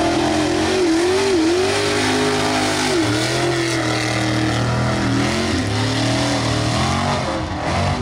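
Mud racing truck engines revving hard, their pitch rising and falling again and again.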